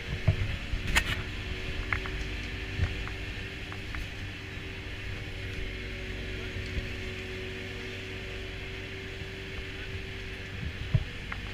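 Chairlift station machinery running with a steady hum, under a low rumble, with a few short clacks and knocks of skis and poles, the sharpest about a second in.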